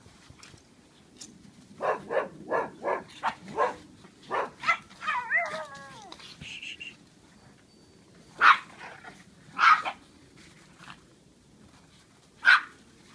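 Small Japanese Chin dogs play-barking: a quick run of about eight sharp barks, then a short yelp that falls in pitch, then three single loud barks a second or more apart.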